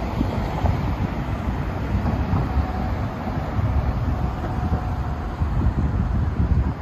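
Wind buffeting the microphone in an uneven low rumble, over the noise of cars driving through the intersection.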